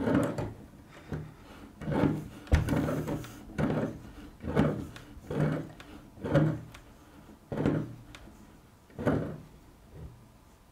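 Galvanised steel conduit coupling being turned along its threaded nipple with water pump pliers: about nine short metal-on-metal scrapes, roughly one a second, as the pliers bite and turn the coupling a little at a time. There is one sharp click about two and a half seconds in.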